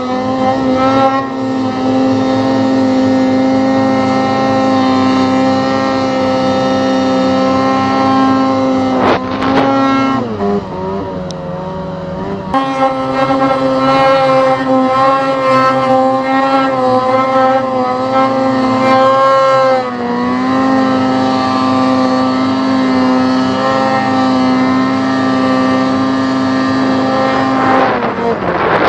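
Snowmobile engine running at high revs through deep powder. Its pitch drops for a couple of seconds about ten seconds in and dips briefly near twenty seconds, then the revs fall away near the end.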